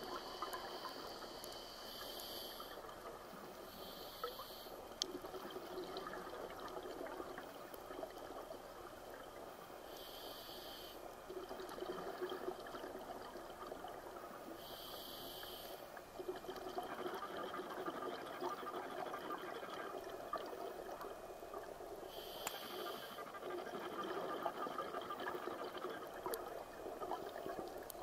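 Underwater ambience from a scuba dive: a continuous bubbling, gurgling rush, with a brief hiss every few seconds like a diver's regulator breathing.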